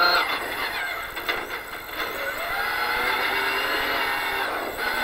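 Toyota Hilux rally-raid car's engine and drivetrain heard from inside the cockpit. The engine drops off about a second in, with a few knocks, then pulls again with its pitch rising steadily.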